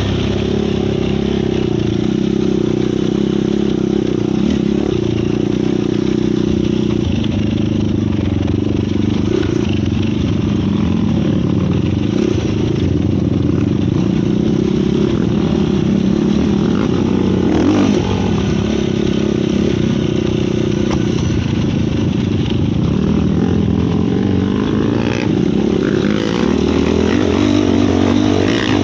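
Yamaha YFZ450 sport quad's single-cylinder four-stroke engine running while being ridden, its note rising and falling with the throttle.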